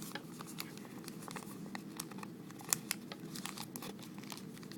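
Origami paper being handled and folded by hand: crinkling and rustling with many small, sharp paper crackles.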